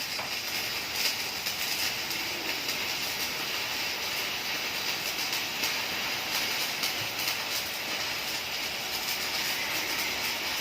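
Electric arc welding on steel C-channel: a steady crackling hiss with irregular sharp pops throughout.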